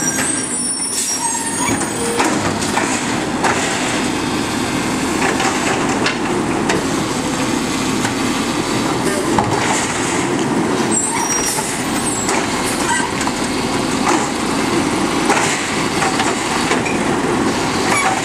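Automated side-loader garbage truck's diesel engine running steadily as it pulls up to the curbside carts, with scattered knocks and short squeals and a hiss of air brakes. Near the end its hydraulic arm begins lifting a cart.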